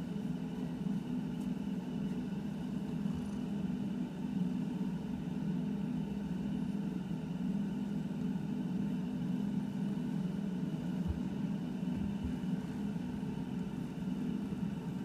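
Domestic cat purring steadily while being stroked, a continuous low rumble close to the microphone, with a couple of faint low knocks in the second half.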